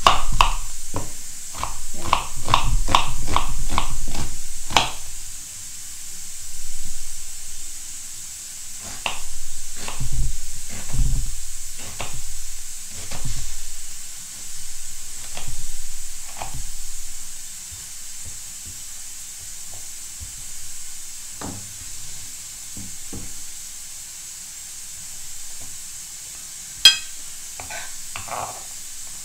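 Kitchen knife cutting an onion on a wooden cutting board. A quick run of cuts comes in the first few seconds, then slower, irregular cuts, with one sharp click near the end.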